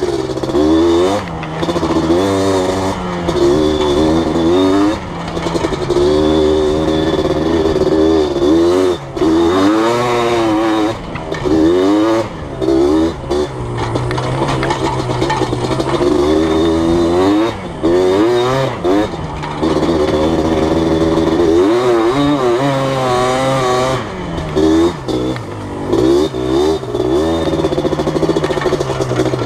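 Yamaha Blaster ATV's two-stroke single-cylinder engine being ridden, its pitch rising and falling over and over as the throttle is opened and eased off every second or two, with short dips in level.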